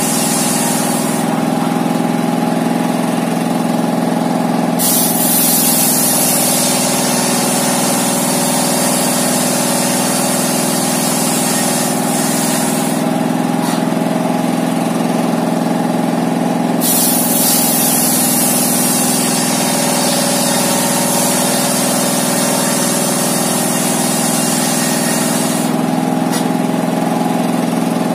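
A homemade table circular saw, belt-driven by a single-cylinder Dongfeng-type diesel engine, rips a wooden plank. The engine runs steadily throughout. The blade's high cutting hiss comes in long stretches and drops out for a few seconds near the start, around the middle and near the end.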